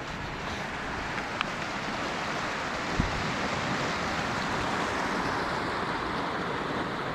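Steady rush of river water, swelling slightly in the middle, with a single sharp knock about three seconds in.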